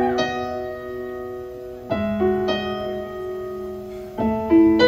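Stage keyboard playing a piano sound: slow sustained chords, a new chord struck about every two seconds and left to ring out between strikes.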